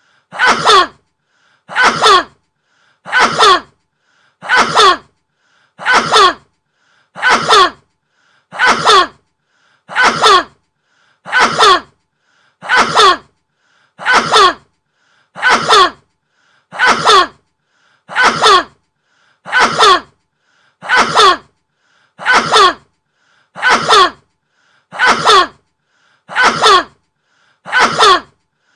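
A man's sneeze, repeated over and over at an even pace of about one every 1.3 seconds, each sneeze identical to the last and led by a faint short intake of breath.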